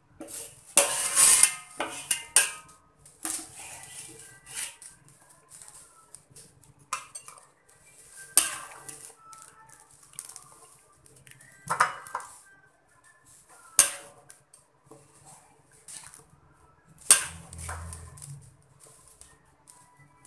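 Metal ladle scraping and clinking against a metal wok and a plate while chicken curry with potatoes is scooped out and served, in scattered knocks and scrapes.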